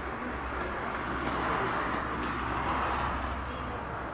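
Steady outdoor background noise with a constant low hum underneath and a few faint light ticks.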